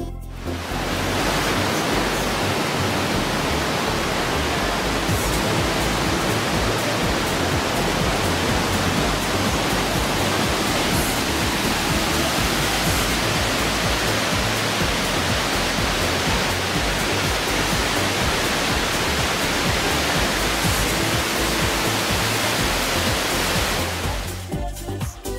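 Loud, steady rush of whitewater in a rocky river gorge, an even roar with no let-up. It cuts in about half a second in and fades away near the end.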